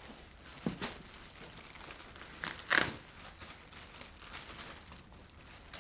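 Plastic wrapping and a canopy cover rustling and crinkling as they are handled, with a couple of sharper crackles, the loudest near the middle.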